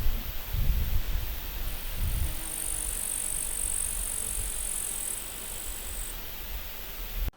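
Forest ambience with wind buffeting the microphone in low rumbling gusts over a steady hiss. A high, thin, steady sound, like an insect trill, runs from about two to six seconds in. The sound cuts off abruptly just before the end.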